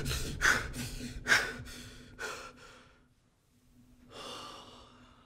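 A man panting in quick, heavy breaths that slow and fade over about three seconds, then one long exhale about four seconds in: breathing hard after being startled awake from a nightmare.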